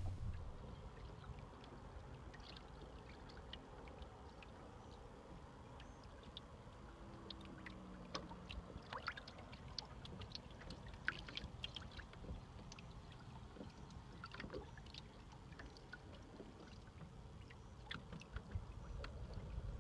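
Faint water lapping and trickling against a wooden outrigger sailing canoe's hull and float as it drifts in a calm, with many small scattered ticks and splashes.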